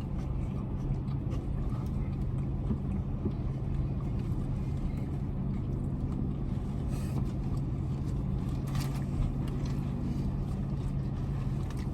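Steady low hum of an idling car engine, with a few faint clicks or rustles.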